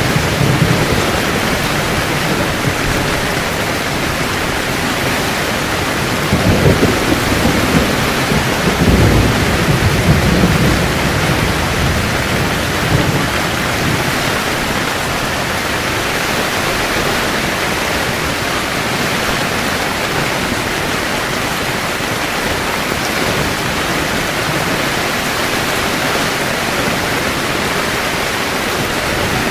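Heavy rain beating steadily on a camping tent, with thunder rumbling low from about six to eleven seconds in and once more, briefly, a couple of seconds later.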